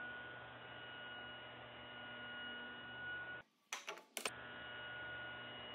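A steady low hum with a thin, constant high tone over it. About three and a half seconds in it drops out briefly, then a few sharp clicks sound before the hum returns.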